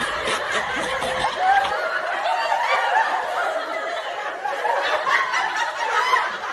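Laughter from several voices snickering and chuckling together, steady throughout.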